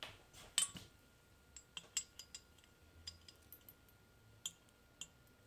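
Scattered light clinks and ticks of a measuring spoon and a glass bottle as sake is measured out into the spoon. The loudest knock comes about half a second in.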